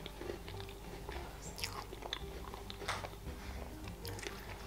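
A person chewing a mouthful of pavlova, soft meringue with cream and berries, close to the microphone, with small wet mouth clicks and smacks scattered irregularly.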